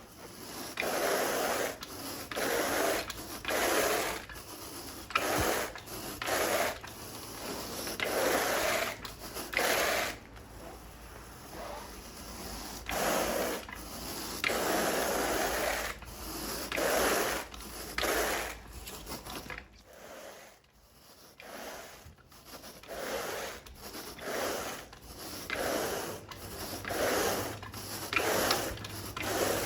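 Carpet rake dragged through carpet pile in repeated scraping strokes, about one a second, pausing briefly about two thirds of the way through.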